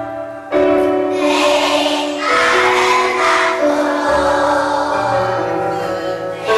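A group of voices singing a song together with musical accompaniment, with a brief pause about half a second in before the singing resumes.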